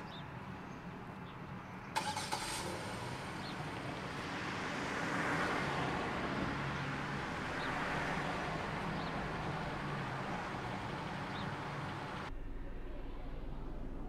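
Street traffic noise with a vehicle engine running, swelling and fading through the middle; a sharp knock about two seconds in. Near the end the sound changes to a quieter bed with a steady low hum.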